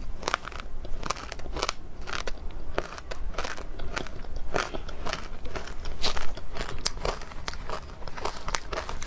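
A person biting and chewing frozen matcha ice up close, making a steady run of irregular crisp crunches and crackles.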